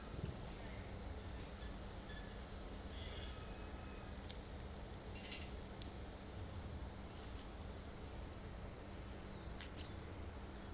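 A cricket trilling steadily, a high, evenly pulsed chirring that never stops, with a few faint clicks around the middle and near the end.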